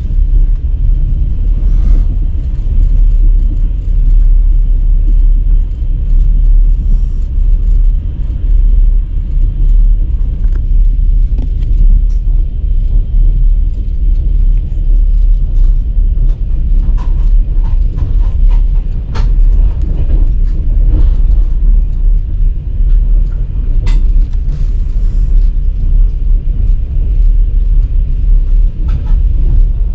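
Steady low rumble of a moving vehicle in motion, with a few faint clicks and knocks.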